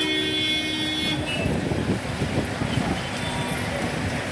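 A car horn sounds for just over a second, then gives way to the noise of a crowd pressing around the cars.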